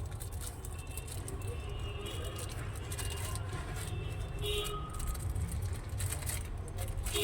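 Steady low rumble of street traffic, with a short car horn toot about four and a half seconds in and scattered light clicks and taps.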